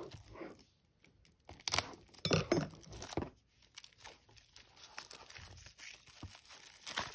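Plastic shrink-wrap being slit and torn off a Blu-ray case, with a few sharp rips about two to three seconds in, then softer crinkling as the film is peeled away.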